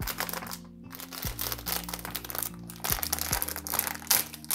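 A foil blind-box bag crinkling and crackling as hands squeeze and pull it open, over soft background music with sustained low tones.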